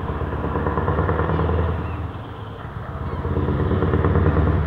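Scania R580's 16.4-litre V8 diesel running through an open-pipe exhaust as the truck drives up, loud and deep, swelling louder twice, about a second in and again near the end.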